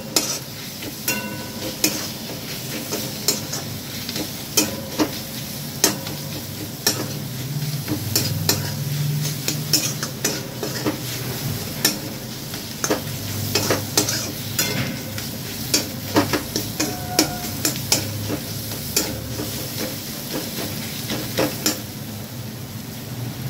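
Onion-tomato masala sizzling in oil in a metal kadhai as it is fried down (bhuna), with a metal spatula scraping and clacking against the pan in many irregular sharp strokes.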